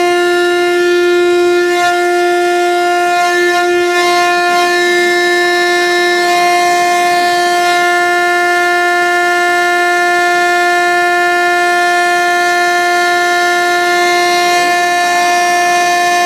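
Midday siren sounding one long steady tone at a constant pitch, a time signal marking noon.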